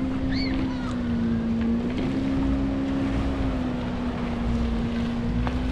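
Motorboat engine running at a steady speed, a low hum that wavers a little in pitch, with wind and water noise around it.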